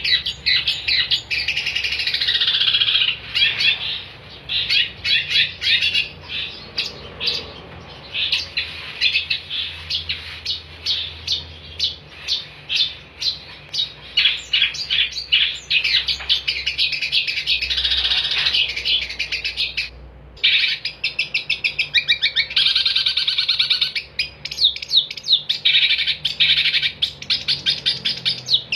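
Long-tailed shrike (cendet) singing non-stop in fast runs of sharp, chattering notes, with a short break about twenty seconds in.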